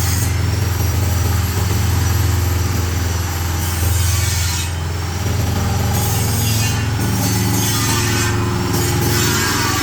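Livestock feed and compost mixer machine running, a steady low hum under a constant churning noise.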